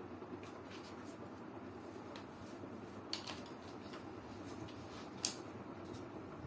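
Steady low room hiss with two short, sharp clicks, one about three seconds in and a louder one about five seconds in.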